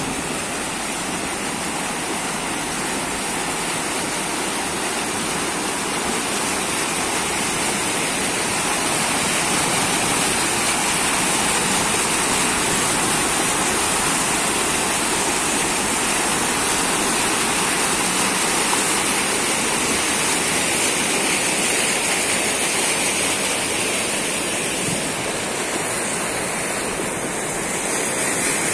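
Muddy floodwater rushing and churning through a street in a steady, loud torrent.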